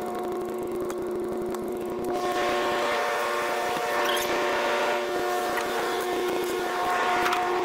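Steady drone of idling diesel machinery with several even tones, which turns louder and brighter about two seconds in as the cab door opens. A few faint knocks sound over it.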